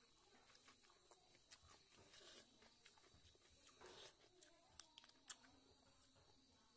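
Faint, close eating sounds of a person eating rice with the fingers: soft chewing, mouth clicks and lip smacks, with two sharper clicks about five seconds in.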